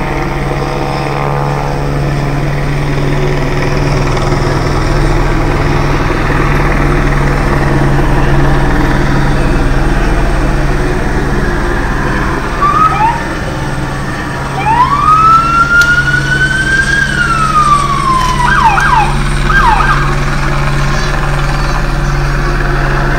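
A police car siren gives a short chirp, then a single long wail that rises and falls, followed by a few quick yelps, over a steady low drone.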